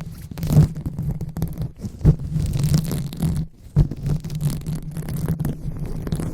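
Hands rubbing and massaging a microphone in ASMR 'brain massage' style: continuous low, rumbling rubbing and scratching with a few sharper bumps, about half a second, two seconds and nearly four seconds in.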